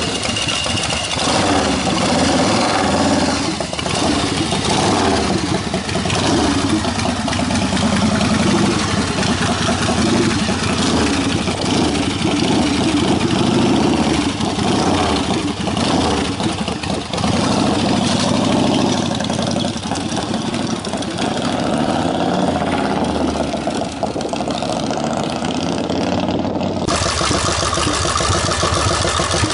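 Custom chopper motorcycle engine running, with its pitch rising and falling as it is revved. The sound changes abruptly near the end.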